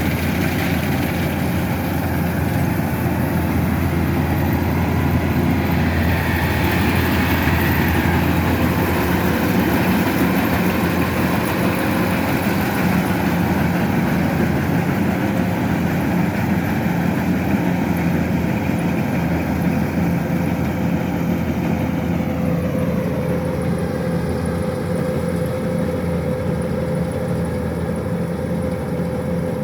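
Kubota DC-105X combine harvester running steadily, its diesel engine and threshing machinery droning. About three-quarters of the way through, a higher tone glides down in pitch and then holds steady at the lower note.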